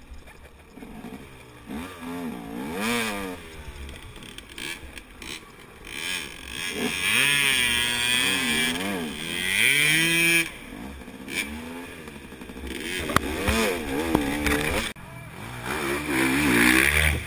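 KTM 250 XC two-stroke dirt bike engine revving in repeated bursts, its pitch rising and falling, as the bike works through a deep mud rut. It is loudest about halfway through and again near the end, as the bike pulls through the mud.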